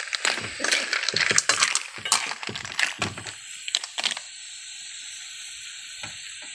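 A metal spoon stirring mussels in their shells in a metal wok: the shells clink and scrape against each other and the pan in quick, irregular clicks for about four seconds, then it goes quieter with only a few clicks.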